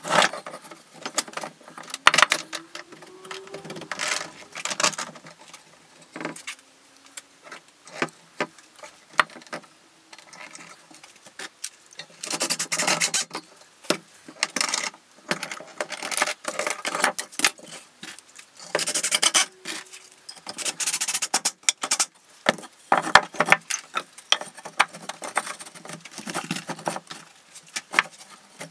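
Wooden battens and metal corner clamps knocking and clicking on a workbench as a frame is clamped up, with several short runs of a cordless drill, its motor speeding up.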